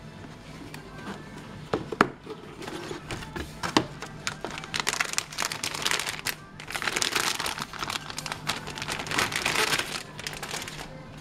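Crinkling of a plastic anti-static bag as a motherboard inside it is handled and lifted out of its box, in two long stretches. Two sharp clicks come before it, about two and four seconds in.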